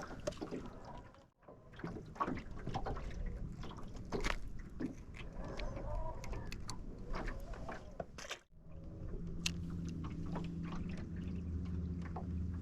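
Water splashing with scattered small clicks and knocks. Past the middle, a steady low hum sets in.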